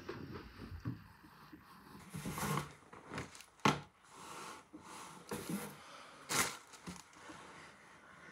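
Secondhand clothes being handled and shuffled: fabric rustling and brushing in several short swishes, the sharpest about three and a half seconds in.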